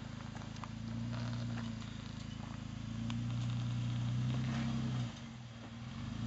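Jeep Wrangler engine running at low revs under light throttle as it crawls up steep rock. The note swells and eases with the throttle, dipping briefly about five seconds in.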